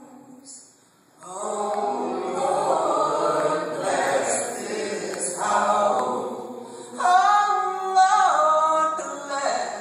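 A woman singing a slow song, with choir voices alongside her. The singing breaks off briefly near the start and picks up again about a second in.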